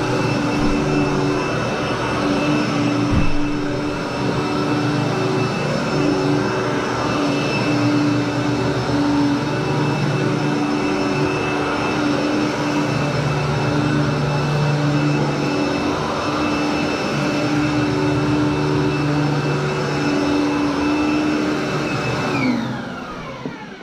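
Commercial upright vacuum cleaner running steadily over carpet with a steady motor whine, and one knock about three seconds in. Near the end the motor's pitch falls as it winds down.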